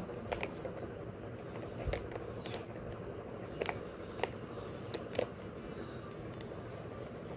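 Irregular light clicks and clacks of plastic colour-puzzle pieces being pushed around as the puzzle is scrambled, a sharp click every second or so.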